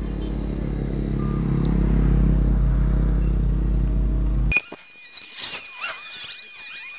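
Yamaha motorcycle engine idling steadily; it cuts off abruptly a little past the middle. High-pitched chirping squeaks then follow over a thin steady whistle-like tone.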